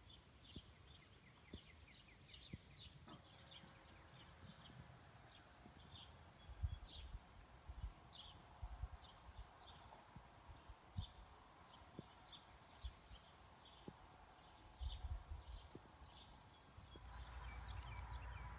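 Faint outdoor night ambience: a steady high drone of insects with short chirps repeating every second or so, and a few soft low knocks and bumps.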